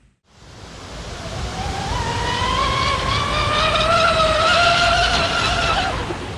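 Electric RC catamaran's motor and propellers whining, climbing steadily in pitch as it accelerates across the water, over a rush of wind and spray. The whine cuts off abruptly near the end.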